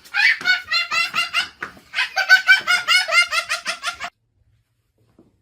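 A child laughing hard in rapid, high-pitched peals, cut off abruptly about four seconds in.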